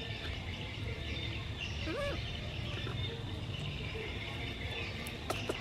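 Outdoor background of small birds chirping, with a low rumble underneath. One short call that rises and falls about two seconds in, and a couple of sharp clicks near the end.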